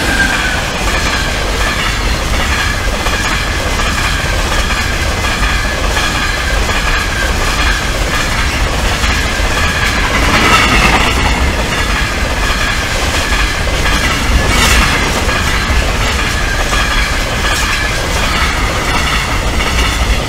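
Freight train of hopper wagons passing close by over a level crossing: a loud, steady rumble and clatter of wheels on the rails, with brief louder screeching moments about ten seconds in and again near fifteen. Level-crossing bells keep ringing steadily underneath.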